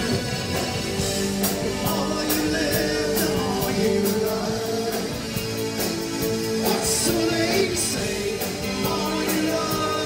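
New wave band playing live: synthesizer keyboard, electric guitar and drum kit with a steady hi-hat beat, with a sung vocal line over it.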